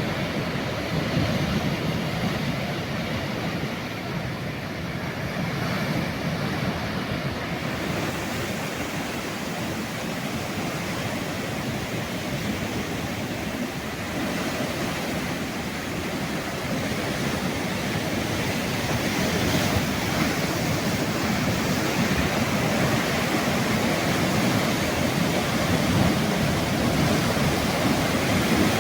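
Ocean waves breaking and washing on the shore, a continuous surf that swells and eases, growing a little louder in the second half, with some wind on the microphone.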